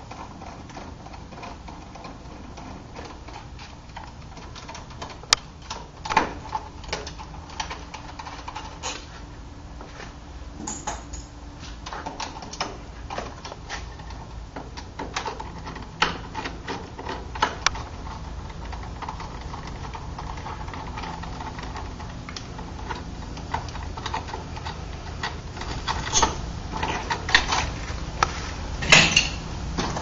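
Screwdriver and metal door-knob lockset parts clicking, tapping and rattling while the old lock is unscrewed and taken apart. The footage is fast-forwarded, so the clicks come quickly and irregularly over a steady low hum, with a few sharper clacks.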